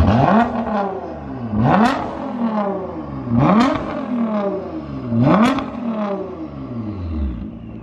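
Nissan GT-R R35's twin-turbo V6 revved hard four times through a Fi Exhaust with its valves open, each rev rising sharply and falling back slowly, then settling to idle near the end.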